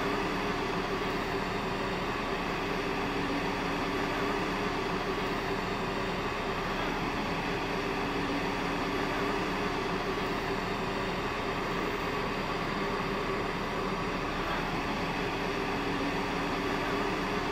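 Machinery running steadily: an even drone with a constant low hum and a hiss that does not change.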